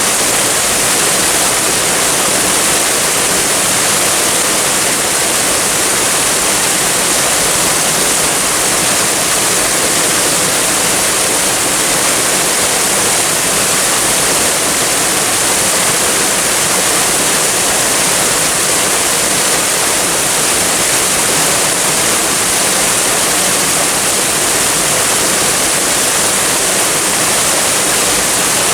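Waterfall: a steady, unbroken rush of falling water, loud and even throughout, with a bright hiss on top.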